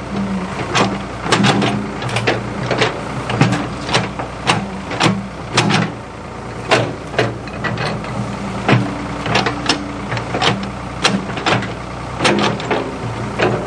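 Ford 555 backhoe's diesel engine running steadily under sharp, uneven clanks and knocks, roughly one or two a second, as the machine works.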